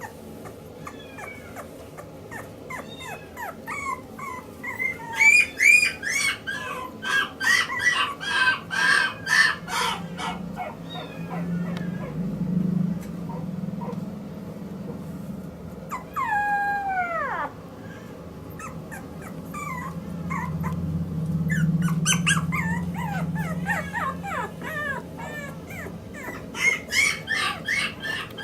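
Maltese puppy whining and yipping in quick strings of short, high cries, with one longer whine falling in pitch a little past halfway.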